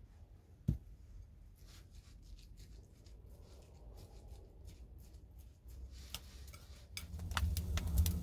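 A single sharp click, then soft wet squelching and small clicks as hands knead a filling mixture in a bowl. About 7 s in, a low rumble and crackling from a wood fire come in.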